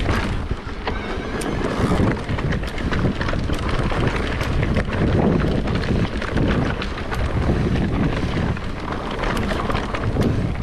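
Mountain bike rolling fast down a dirt forest trail: tyre noise over the dirt, with frequent small clicks and rattles from the bike. Wind buffets the microphone with a low rumble throughout.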